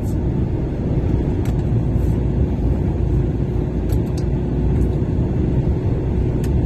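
Lorry's diesel engine running with a steady low rumble, with a faint steady hum and a few light clicks.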